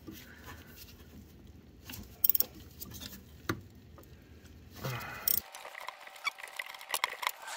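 Two short hisses of WD-40 aerosol spray, about two and five seconds in, then rapid metallic clicking of a wrench working a 15 mm fastener on the steering gearbox.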